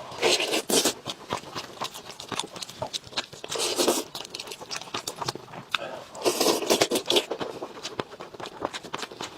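Close-up eating sounds: a person chewing and crunching food, with many quick wet clicks and three louder bursts spread across the stretch.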